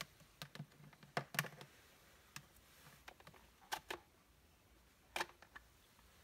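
Sharp plastic clicks and knocks of a white plastic mosquito-trap lamp being handled and its bottom catch basket pulled off the body, in irregular clusters with the loudest about a second and a half in and again about five seconds in.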